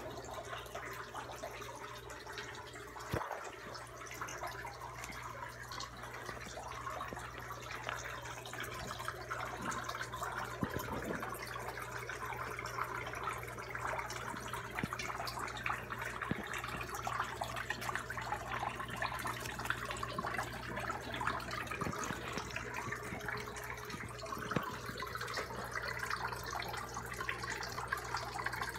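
A waterfall-style aquarium filter pouring its outflow into the pool: a steady trickle and splash of falling water over a steady low hum. A few faint knocks are heard here and there.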